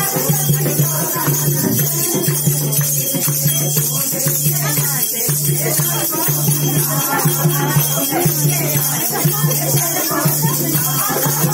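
A group of women singing a Garhwali devotional bhajan to Shiva, with a dholak and jingling hand percussion such as chimta keeping a steady beat.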